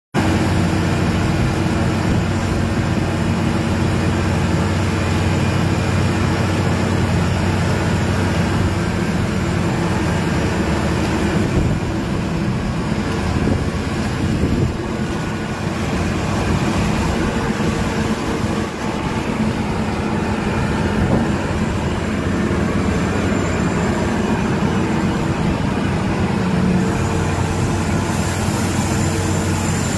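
Heavy diesel machinery running steadily: a loud, continuous low drone with a steady hum, dipping slightly about halfway through.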